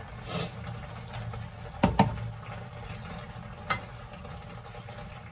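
A spatula stirring spinach in a frying pan of simmering cream sauce, knocking against the pan twice: a sharp knock about two seconds in, the loudest sound, and a smaller one near four seconds. A brief soft rustle of the leaves going into the pan comes at the start, over a steady low bubbling from the pan.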